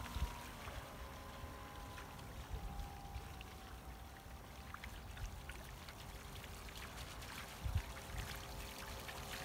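Faint whine of a radio-controlled model speedboat's motor out on the water, shifting a little in pitch, over water lapping. Wind buffets the microphone a few times, most strongly near the end.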